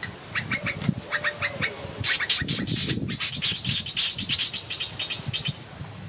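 Small birds calling: a quick series of short high chirps in the first two seconds, then a longer run of rapid, harsh chattering notes that stops shortly before the end.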